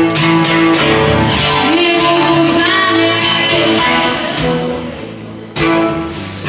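Live acoustic guitar strumming chords, with a voice singing held notes over it. A fresh strum comes in sharply near the end.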